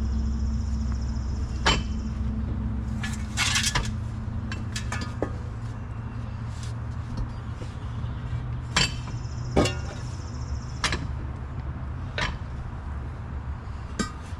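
Scattered sharp metallic clanks and knocks, about nine or ten of them at uneven intervals, from steel tools and a pry bar working against a tractor's rear wheel, over a steady low hum.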